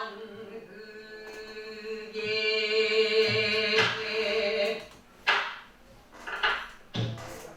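Pansori singing: a voice holding long, wavering sung notes, with a buk barrel drum struck now and then as accompaniment. The voice drops away for a couple of seconds past the middle, leaving a few sharp drum strokes.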